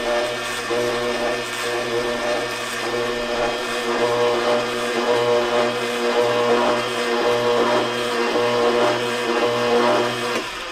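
Kuvings NSF commercial slow juicer's 200-watt motor running with a steady hum while its screw presses oranges and pineapple; near the end the motor is switched off and winds down.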